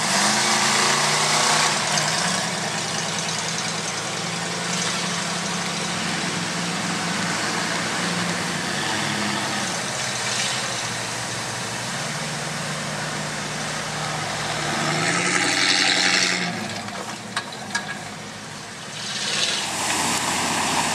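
Engines of lifted 4x4 mud trucks on 44-inch tires running and revving as they wade through creek water, pitch rising and falling with the throttle over a steady wash of splashing water and mud. About fifteen seconds in a hard rev comes with a louder burst of spray.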